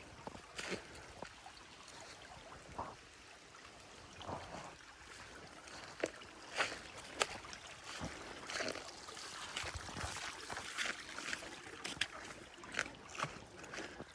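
Footsteps crunching and rustling on the forest floor: scattered at first, then from about six seconds in at a steady walking pace of roughly two steps a second.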